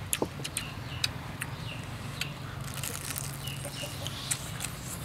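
Chickens clucking and chirping in short falling calls, over the sharp crunchy clicks of a crisp fried spring roll being bitten and chewed.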